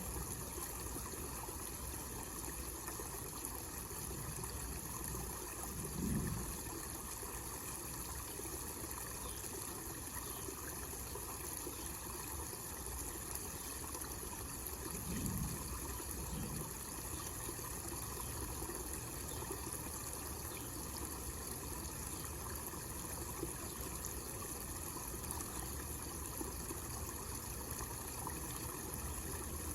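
Water trickling and splashing steadily from a small homemade waterfall into a pond basin. Two brief low rumbles come through, about six and fifteen seconds in.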